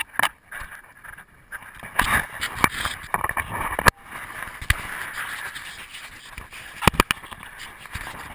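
Knocks and rubbing noise from a GoPro camera strapped to a dog as the dog moves about, with a handful of sharp knocks, two of them close together near the end.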